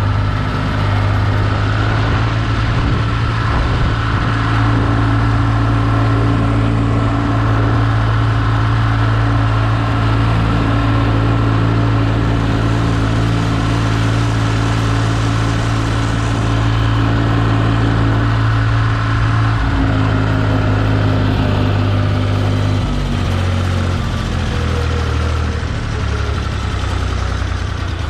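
Tractor engine running steadily at constant speed, its note shifting slightly about twenty seconds in and again a few seconds later.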